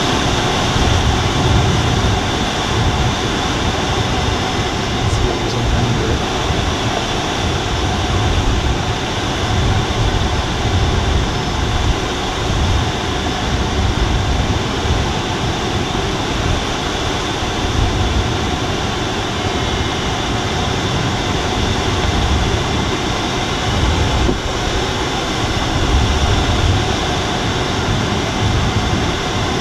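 Steady rush of air over the canopy inside a motorglider's cockpit in gliding flight, with a low buffeting rumble underneath.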